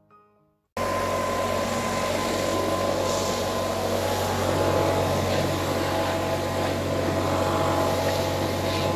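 Petrol backpack leaf blower running steadily at high speed, its engine hum mixed with air rushing from the blower tube; it starts abruptly under a second in.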